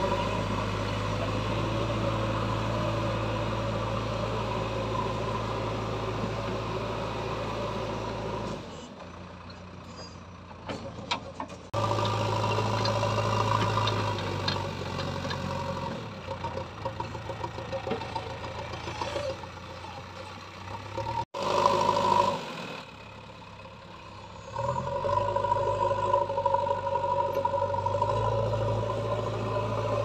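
JCB backhoe loader's diesel engine running as the machine digs and lifts, its level rising and falling with the work. A few short knocks sound in a quieter stretch about a third of the way in.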